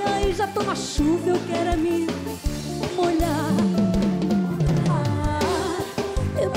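Instrumental passage of an upbeat pop song with a drum kit to the fore; a run of low notes falls in pitch about halfway through.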